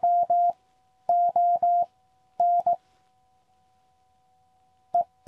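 Morse code (CW) from a QCX Mini QRP transceiver: a steady mid-pitched tone keyed in short and long elements, in three quick groups over the first three seconds, then a pause and two short elements near the end. A fainter, higher steady tone runs unbroken beneath.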